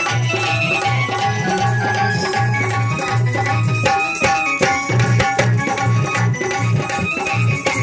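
Instrumental passage of Indian devotional folk music: an electronic keyboard plays a running melody over a steady hand-drum rhythm with a pulsing bass line.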